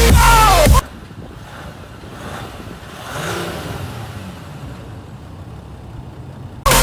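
A motor vehicle's engine, heard faintly once the music drops out, swelling in level and pitch about three seconds in, then easing off.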